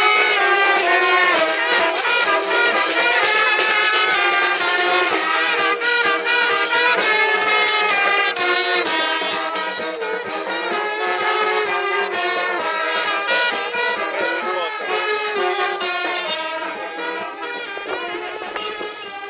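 Marching brass band of saxophones, trumpets and trombones playing a lively tune, growing fainter over the last few seconds.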